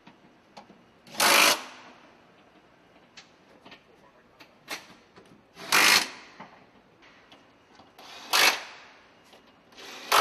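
Power tools on a car assembly line running in short bursts of about half a second, four times, with small clicks and knocks in between.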